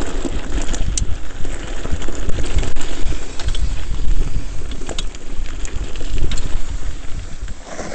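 Wind rumbling on the microphone and a mountain bike rattling down a rough dirt trail, with scattered sharp knocks and clicks as it bounces over the ground.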